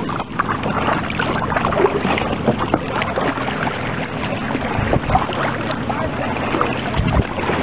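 Kayak paddling: a double-bladed paddle dipping and pulling through the water, with irregular splashes and drips over a steady rushing noise.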